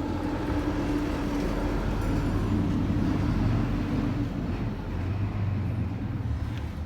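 Car engine running with a steady low rumble and a steady hum that stops about four seconds in. The engine has an abnormal noise that its owner takes for a blown engine, and Motor Up additive has just been poured into its oil.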